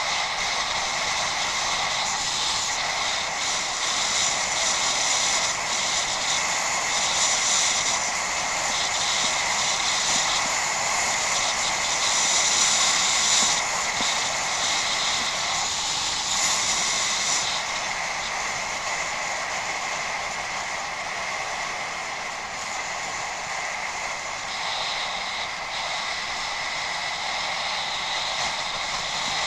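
Steady noise of a bicycle being ridden off-road: tyres running on a rough dirt track, with air rushing past a head-mounted action camera. It swells briefly a few times in the first half.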